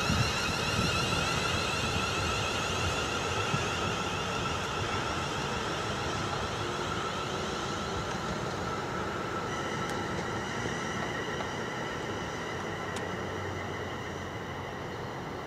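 Class 350 Desiro electric multiple unit pulling away, its traction equipment giving a steady high whine of several tones over a rolling rumble. The whine shifts to a new set of tones about ten seconds in, and the whole sound slowly fades as the train recedes.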